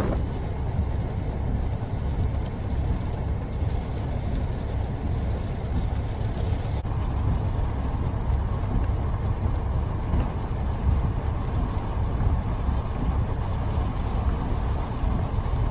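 Steady low rumble of strong storm wind buffeting the microphone, with no distinct knocks or pitched sounds.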